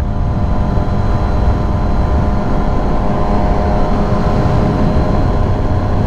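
Kawasaki Ninja ZX-6R's inline-four engine running at steady high revs at speed, its tone held level throughout, under heavy wind noise on the microphone.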